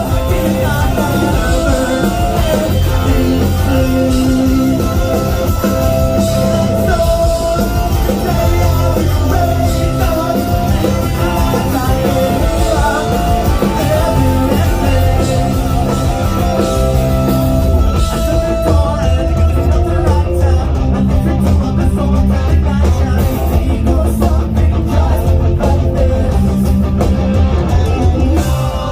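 Rock music with a singing voice, guitar, bass and drums.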